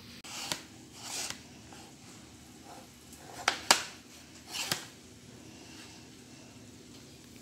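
Brief handling noises of a white ceramic serving plate being moved and set down on a wooden cutting board: a few short scrapes and rustles, with two sharp clicks about three and a half seconds in.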